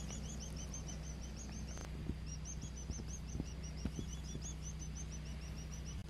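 A bird calling in fast runs of short, high chirps, about six a second, with a brief pause about two seconds in, over a steady low background hum.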